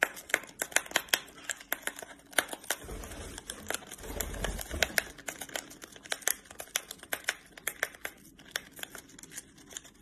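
A lovebird's beak nipping and tearing at the sealed top of a paper tea packet: rapid sharp snips and crinkles, thinning out toward the end.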